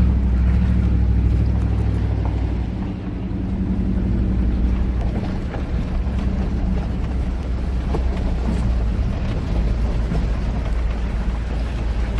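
Motor vehicle running with a steady low engine drone, most likely a car driving up to the fishing spot.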